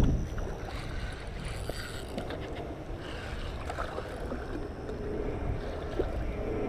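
Hooked fish splashing at the water's surface close to the bank as it is reeled in, over rumbling wind noise on the microphone.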